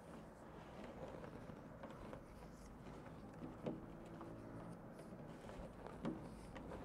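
Faint handling noise as a rubber weatherstrip gasket is worked by hand into the groove of a PVC window sash: soft rubbing with a few light clicks and taps.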